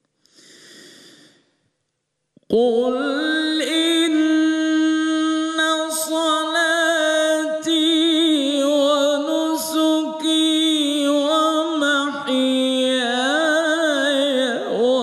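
A man reciting the Quran in the melodic Egyptian style: a short breath, then from about two and a half seconds in one long held note, drawn out with wavering ornaments and small slides in pitch.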